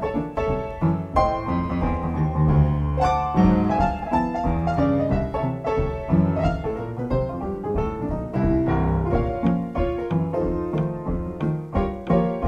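Instrumental background music led by piano, a steady flow of notes and chords.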